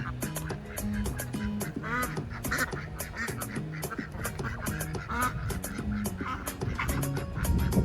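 Ducks quacking several times over background music with a steady beat.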